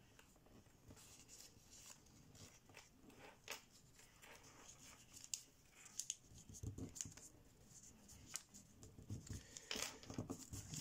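Faint crinkling and rustling of thin kami origami paper being pinched, spread and pressed flat by hand, in scattered short crackles, with a few soft thumps in the second half.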